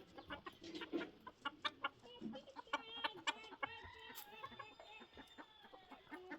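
Chickens clucking: a string of short, sharp clucks, with a few longer drawn-out calls in the middle.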